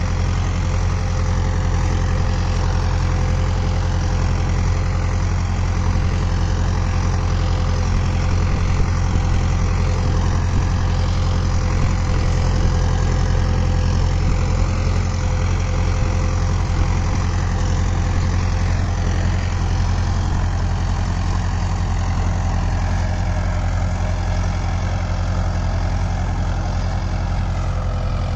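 Mahindra Arjun Novo tractor's diesel engine running steadily under load as it pulls a three-bottom Lemken reversible mouldboard plough through the field, a constant low hum.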